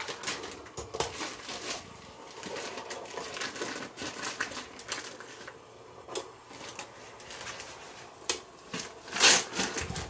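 Paper microwave popcorn bag crinkling as it is shaken and squeezed, with unpopped kernels and their coating clicking and rattling onto the plate of a Stir Crazy popcorn popper; a louder burst of crinkling about nine seconds in.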